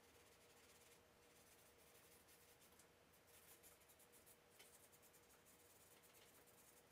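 Faint scratching of a charcoal stick on sketch paper in short bursts of strokes, over a thin steady hum.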